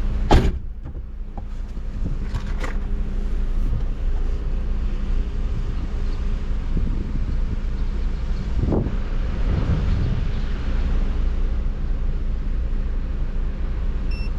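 Vehicle running with a steady low rumble and some wind noise; a sharp click about half a second in.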